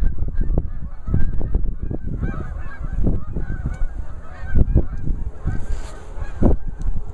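A flock of geese honking, many short calls overlapping throughout, over a low rumble of wind and handling noise.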